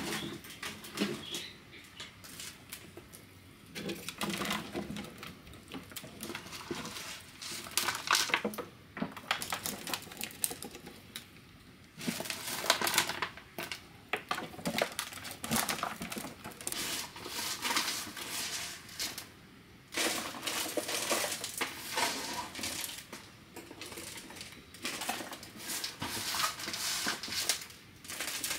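Marinated fish being pressed by hand into a clear plastic jar: the thin plastic crackles and knocks in irregular bursts, with scattered sharp clicks.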